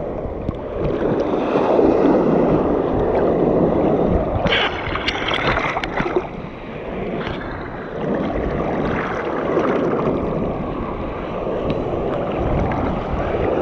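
Seawater sloshing and splashing close around the microphone, a continuous churning wash, with a cluster of sharper splashes about halfway through.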